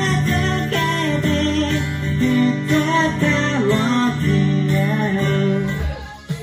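Live acoustic guitar being strummed, with a man singing into the microphone; the song dies away near the end.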